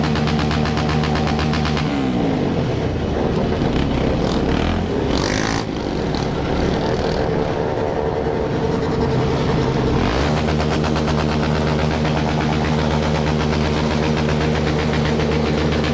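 Several motorcycle engines running together, holding a steady pitch, with revs rising and falling for several seconds in the middle and a short noisy burst about five and a half seconds in.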